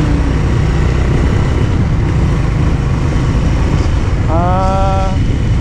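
Suzuki Big Boy 250 single-cylinder motorcycle engine running steadily on the move, with wind rushing over the handlebar-mounted camera's microphone. About four seconds in, a short held pitched tone sounds for under a second over the engine.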